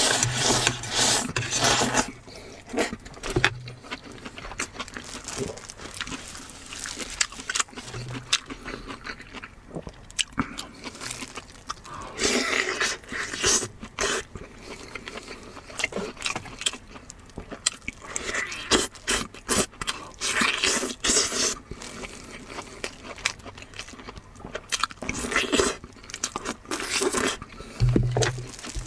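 Close-miked eating of spicy lamb ribs: biting, crunching and chewing, with sharp clicks, in spells of a second or two every few seconds.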